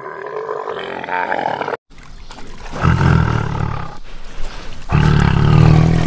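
A dromedary camel calls for about two seconds. After a sudden cut, a tiger roars twice, deep and loud, and the second roar is the longer.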